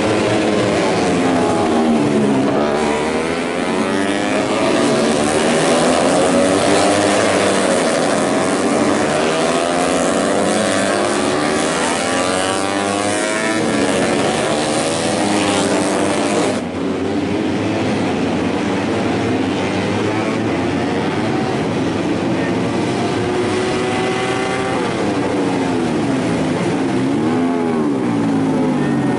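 A pack of tuned four-stroke underbone racing motorcycles of up to 150cc, their engines revving up and down as they race past, several overlapping pitches rising and falling. The sound changes abruptly a little past halfway.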